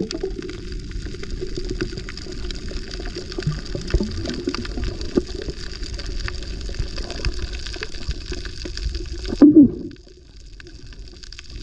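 Muffled underwater sound of water rushing past a submerged camera, with scattered sharp clicks and bubbling. A loud gurgling burst comes about nine and a half seconds in, and after it the sound drops to a quieter hiss.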